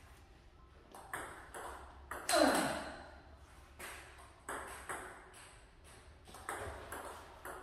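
Table tennis rally: the ball struck by a Nittaku Acoustic 5-ply wooden blade with Hurricane 3 rubber and bouncing on the table, a string of sharp clicks about half a second to a second apart, each ringing briefly in the large hall. The loudest strike comes about two and a half seconds in.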